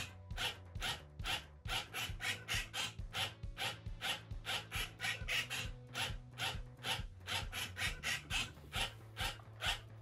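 Moyu cube robot's motors rapidly turning the faces of a 3x3 speed cube, a quick whirring rasp with each turn at about three to four turns a second, as it scrambles and solves continuously in infinite shuffle mode.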